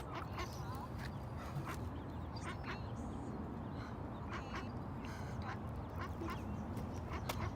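A flock of ducks quacking, many short calls one after another at irregular intervals, over a steady low background rumble.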